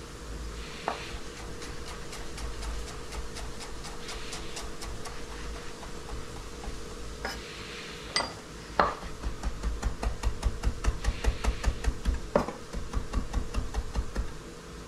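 Hollow-edge chef's knife mincing flat-leaf parsley on a wooden cutting board: light, quick taps at first, then after about nine seconds a louder, steady run of chops, about five a second.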